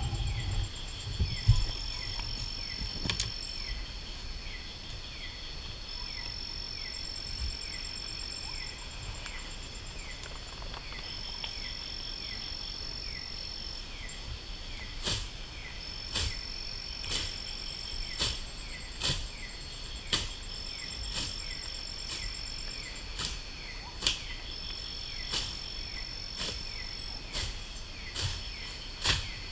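Night insect chorus in tropical forest: a high steady trill that switches on for a couple of seconds at a time over a fast, evenly repeating chirp, with another faint pulsing call above. Scattered sharp clicks come in over the second half.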